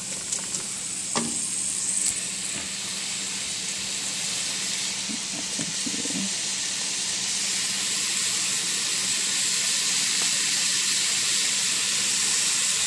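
Shredded cooked chicken sizzling in a nonstick frying pan over the heat, a steady hiss. There are a few light clicks of a spatula against the pan in the first couple of seconds.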